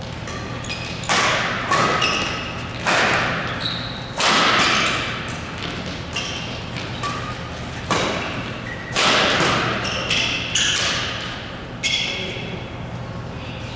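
Badminton doubles rally in a large hall: rackets strike the shuttlecock about nine times with sharp, echoing cracks at an irregular pace, with short squeaks of shoes on the court in between.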